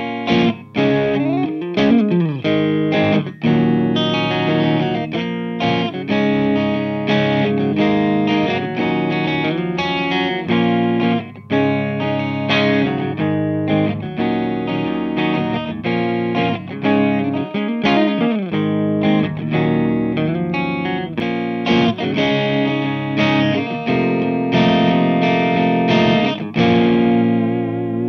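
Electric guitar played through EL84-powered valve amp heads, the passage heard in turn through an Orange OR15 and a Mesa/Boogie Rectoverb 25. A run of picked notes with string bends, ending on a held note with vibrato.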